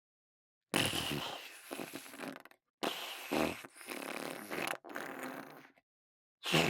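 Fart sound effects played one after another: three in a row, each one to two seconds long and cut off to dead silence, with a fourth starting near the end.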